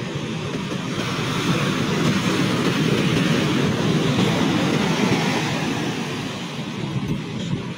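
Rough sea surf breaking and washing up the beach: a loud, steady rush of churning water.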